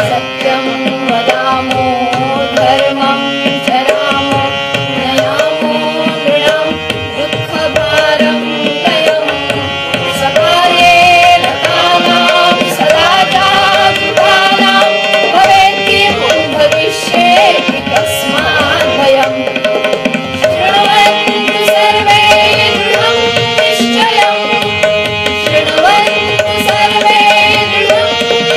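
A mixed group of men and women singing a song together into handheld microphones, with a hand-drum beat underneath.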